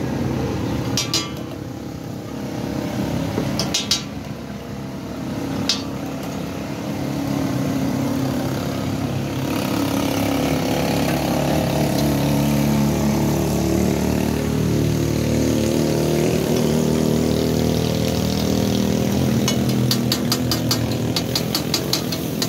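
A metal spatula strikes a large iron tawa a few times. From about ten seconds in, oil sizzles as food fries on the griddle, and near the end the spatula taps and chops rapidly against it, about five times a second. A vehicle engine hums steadily underneath.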